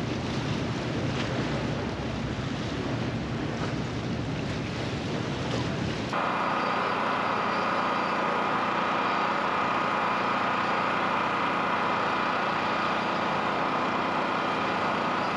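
Wind buffeting the microphone over open water, a heavy rushing rumble. About six seconds in it cuts off abruptly to a steady mechanical hum with a high whine.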